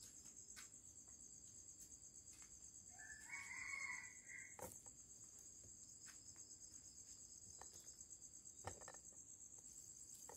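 A rooster crows faintly once, about three seconds in, over a steady high pulsing trill of crickets. A few soft knocks sound here and there.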